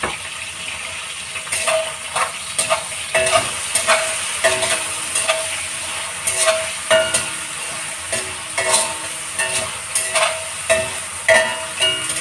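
Pork cubes sizzling in a honeycomb-patterned stainless steel wok. From about a second and a half in, a metal spatula stirs them, knocking and scraping against the pan many times, some knocks leaving the wok ringing briefly.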